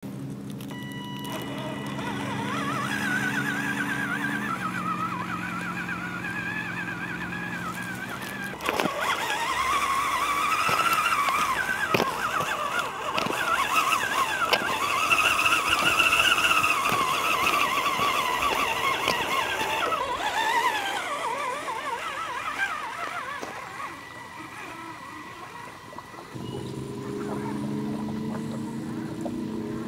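Electric drive motor and geartrain of a 1/10-scale RC rock crawler whining as it drives over gravel. The pitch rises and falls with the throttle, loudest in the middle stretch, with crunching and small clicks from the tyres on the stones.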